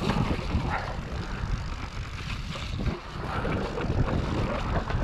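Riding an e-mountain bike along a dirt trail: a fluctuating low rumble of wind on the microphone with tyre and trail noise.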